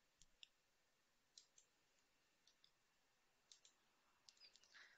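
Faint computer mouse button clicks over near silence, mostly in quick pairs about once a second, with a few more close together near the end.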